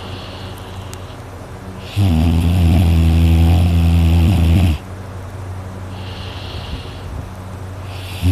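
A sleeping person snoring loudly through an open mouth: one long snore of nearly three seconds beginning about two seconds in, with quieter breathing before and after it, and the next snore starting at the very end.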